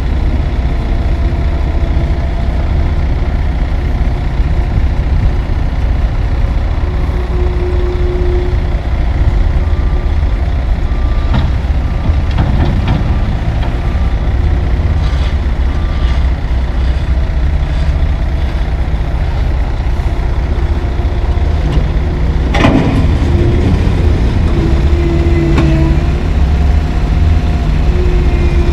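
Heavy diesel engines of a tandem dump truck and a CAT 262C skid steer running steadily. A backup alarm beeps about twice a second for several seconds around the middle while milled asphalt is dumped into the steel box with a few knocks, and a single loud bang comes about two-thirds of the way through.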